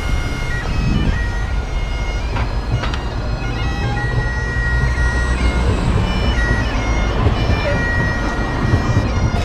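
Bagpipes playing a melody of held notes that step in pitch over their steady drones, with a low rumble of street traffic underneath.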